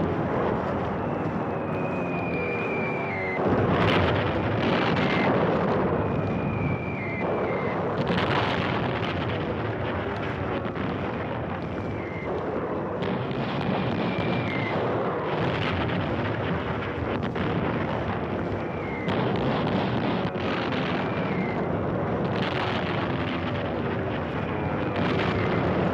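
Bombing raid: a continuous heavy rumble with a large explosion every three to four seconds, about seven in all, several of them preceded by a short falling whistle.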